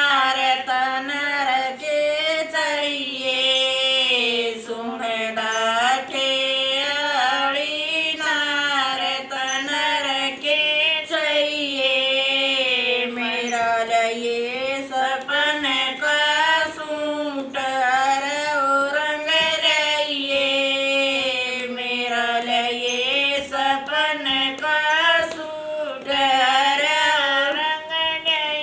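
Women singing a slow, melodic song together in unison, unaccompanied, with long held notes that glide up and down.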